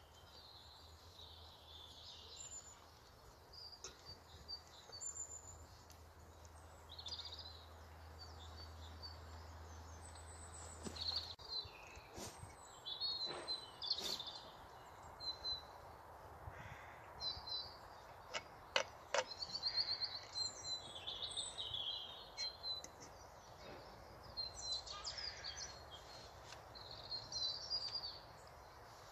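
Small birds chirping and singing on and off throughout, with a few sharp clinks of a metal fork against a frying pan in the middle.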